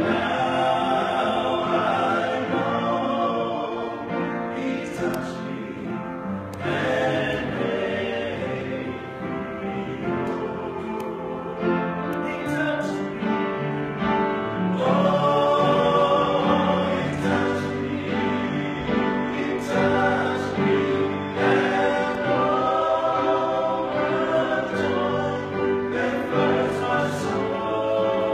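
Men's voices singing together in harmony, with long held notes.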